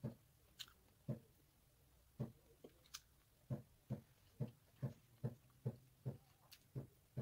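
Close-up chewing of fried chicken with the mouth closed: a soft low thud with each bite, about two to three a second in the second half, with a few sharp clicks in between.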